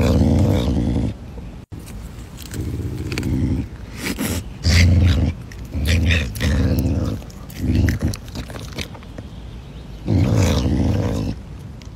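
Caracal growling in a series of low growls, each lasting about half a second to a second, while eating chicken.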